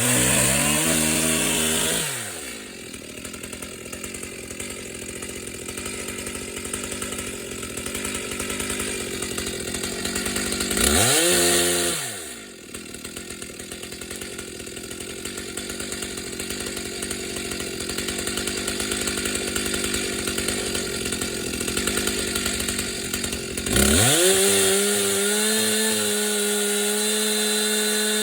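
Two-stroke chainsaw revved up, then dropping back to idle after about two seconds. It is blipped briefly about eleven seconds in, idles again, then is revved up and held at high speed near the end.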